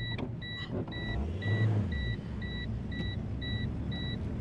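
Car engine running with a low rumble that swells briefly about a second and a half in, under a high electronic beep repeating steadily several times a second.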